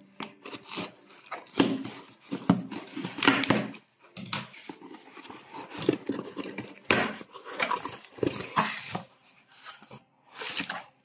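Scissors cutting through the packing tape on a cardboard box, followed by the cardboard flaps being pulled open and the box and its cardboard packing filler scraping and rustling in irregular bursts.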